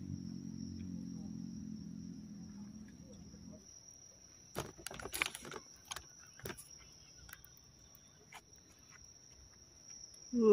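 A low steady hum that cuts off about three and a half seconds in. A few clicks and rustles follow as the phone camera is handled and carried. A thin, high, steady whine runs underneath throughout.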